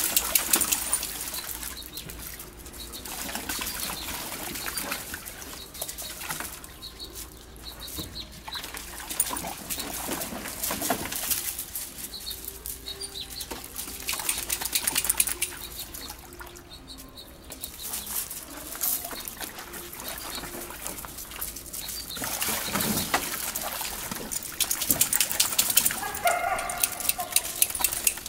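Water sloshing and splashing in a plastic kiddie pool as several dogs wade, drink and move about in it, in uneven bouts of crackling splashes.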